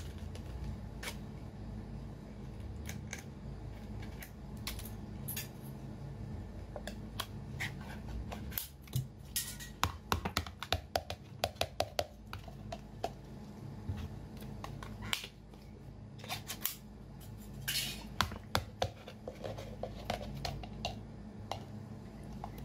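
A glass jar being opened and sea snails in sauce tipped out and placed onto a plate by hand: a run of sharp clicks and clatters of shells against the glass and the plate. The clatter is thickest about halfway through and again near the end.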